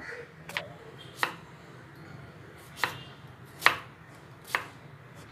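Kitchen knife chopping zucchini on a wooden cutting board: five sharp knocks of the blade striking the board, unevenly spaced, over a faint steady low hum.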